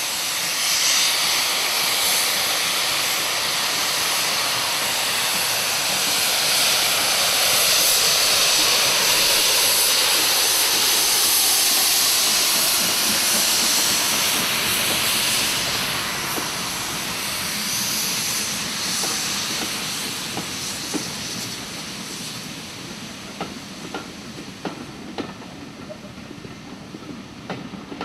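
Steam locomotive hauling a train out of a tunnel, with a loud steady hiss of steam that fades from about two-thirds of the way in. As the coaches roll past, their wheels click over the rail joints.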